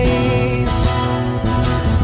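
A recorded pop song: a strummed guitar over bass, with a held sung note in the first half-second.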